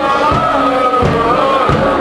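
A large crowd of football supporters singing a chant together in unison, with a regular low beat about three times every two seconds under the voices.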